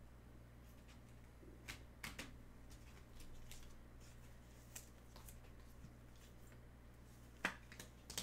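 Faint handling of trading cards and packs: a few soft scattered clicks and rustles, the sharpest about seven and a half seconds in, over a low steady hum.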